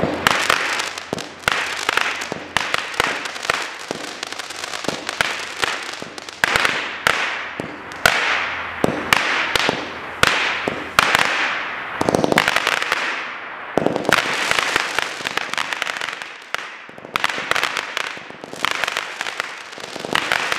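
WP634 Fireworks Fiesta multi-shot firework cake firing a long string of shots in quick succession, many of them trailing off in a fading hiss.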